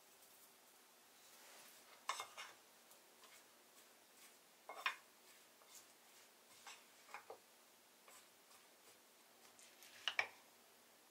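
A wooden spoon stirring chopped salad in a bowl, knocking and scraping against its side: a few faint, scattered clicks, the sharpest about two, five and ten seconds in.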